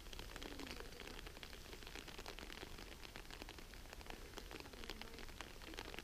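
Faint patter of light rain: many small, irregular drop ticks over a soft hiss.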